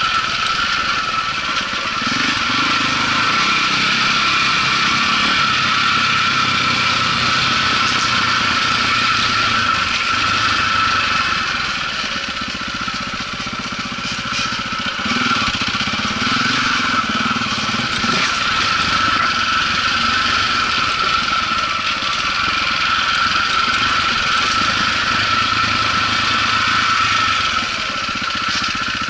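Single-cylinder four-stroke engine of a 2004 KTM 400 EXC enduro motorcycle heard on board while riding, its note rising and falling with the throttle. A steady high-pitched whine sits over the engine sound.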